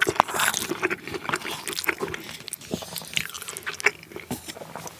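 Close-miked chewing of a mouthful of tuna mayo and rice, full of many small clicks, with a wooden spoon and chopsticks touching the ceramic bowl.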